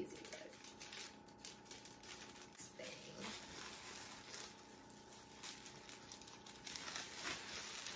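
Plastic packaging crinkling and rustling as party balloons are handled and pulled out, with scattered small taps.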